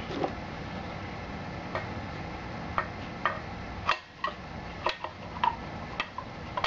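Light clicks and taps of an airspeed indicator's dial and mechanism being handled and pushed back into its case. About a dozen separate clicks come irregularly from about two seconds in, over a steady low background hum.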